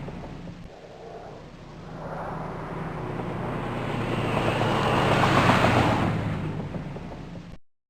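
An Audi car drives past. Its engine sound builds over a few seconds to a peak about five seconds in, then fades, and the audio cuts off abruptly near the end.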